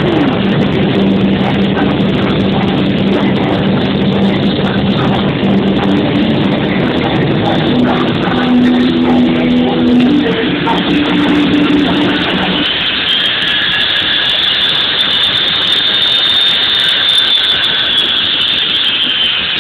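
A jet-powered van's turbine engine running as a loud steady roar, mixed with music whose notes stop abruptly about two-thirds of the way through. A high whine then rises and holds.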